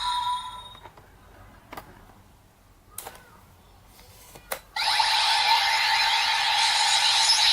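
Electronic sound effects from a Kamen Rider Ryuki CSM V-Buckle and Drag Visor toy: an effect fades out at the start, three sharp plastic clicks follow as the toy is handled, and about five seconds in a loud sustained electronic effect with a steady tone cuts in.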